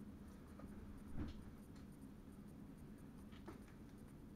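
Faint low rumble inside a train driver's cab while running, with a sharper knock about a second in and a softer click later on.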